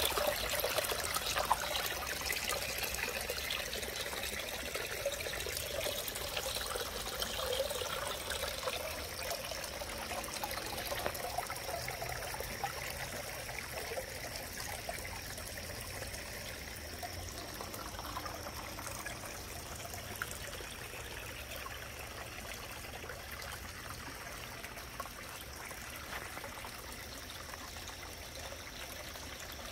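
Water trickling and splashing down a small rock-cascade garden waterfall, steady and slowly growing quieter.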